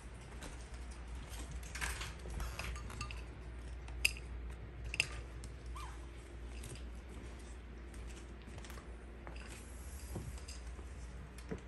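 Small terrier eating from a ceramic food bowl: scattered light clinks and clicks against the dish, with two sharper clinks about a second apart midway.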